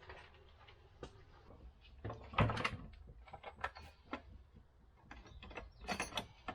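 Scattered clicks, clinks and knocks of hand tools and small metal parts being handled while a motorcycle front fork is worked on, loudest about two and a half seconds in, over a low steady hum.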